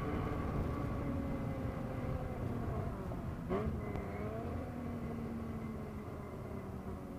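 2013 Porsche Boxster S (981) flat-six heard from inside the cabin, revs falling under hard braking. About three and a half seconds in, a quick throttle blip marks the downshift from fourth to third, then the revs keep dropping with the road speed.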